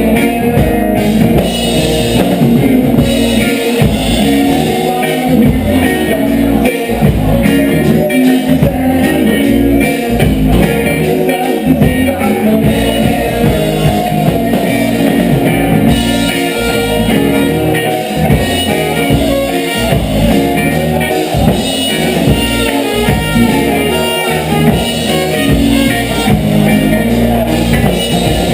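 Reggae band playing a dub tune, with guitar and drum kit over a heavy low end.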